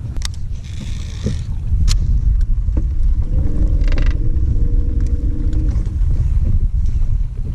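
Wind rumbling on the microphone throughout, with a brief high whir about half a second in as a swimbait is cast off a baitcasting reel. A steady humming tone runs for about two and a half seconds midway.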